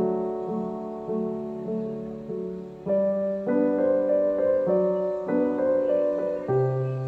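Background piano music, a new note or chord about every half second to second.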